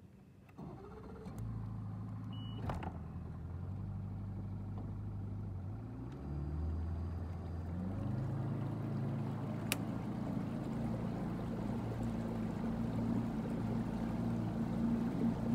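Bass boat's big outboard motor starting about a second in, then running steadily and revving up in two steps as the boat is driven around in a tight circle.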